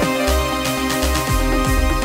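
Background music with a steady electronic beat, about two deep drum hits a second under sustained synth chords.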